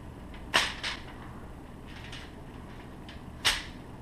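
Sharp handling clicks at a kitchen counter, as hands work a roast on aluminum foil among seasoning bottles. There is one click with a smaller one just after it about half a second in, and another near the end, over a low steady background hum.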